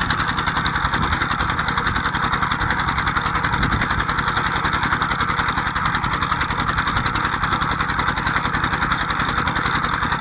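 Petter-type stationary diesel engine running a tubewell pump, going steadily with a rapid, even beat.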